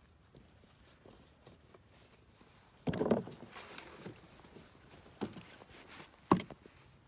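Gloved hands digging in loose garden soil and pulling up carrots: soft scraping and rustling, with a few sudden thuds, the loudest about three seconds in and a sharp one a little after six seconds.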